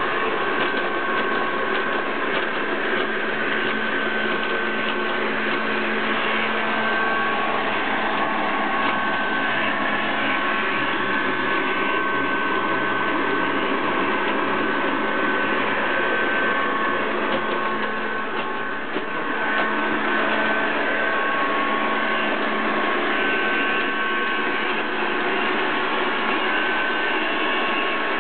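Robot vacuum cleaner running: a steady whir of motor and brushes with a faint whine that comes and goes, and a brief dip in level about two-thirds of the way through.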